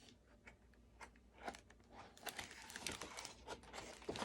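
Faint rustling and crinkling of paper, with scattered small clicks that grow busier toward the end: a book's pages being handled.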